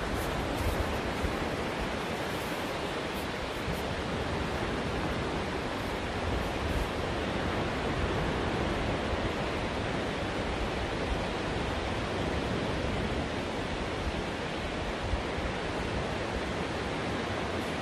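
Ocean surf breaking on a flat sandy beach: a steady rushing wash, with low wind rumble on the microphone now and then.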